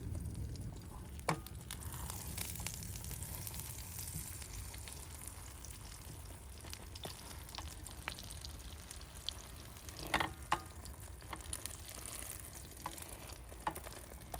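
Food sizzling steadily in a frying pan, with a few light clicks about a second in and again around ten seconds in.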